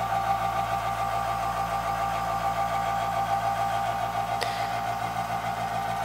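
Iwata Ninja airbrush compressor switched on and running, a steady loud hum. The owner says most of the noise comes from its casing vibrating and rattling. There is a light click about four and a half seconds in.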